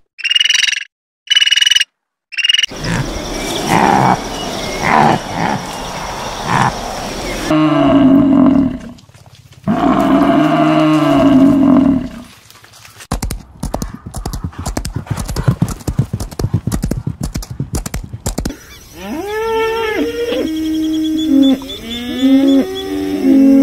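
Short high dolphin whistles at the start, then long low moos from buffalo and cattle. A stretch of rapid clicking follows, and near the end comes a run of short moos that rise and fall in pitch.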